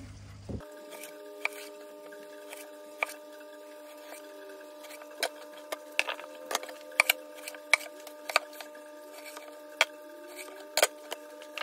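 A machete blade chopping through a sheet of rockwool cubes and knocking on a wooden tabletop: many short, sharp knocks at an irregular pace, thicker in the second half. Under them is a faint steady hum of several tones.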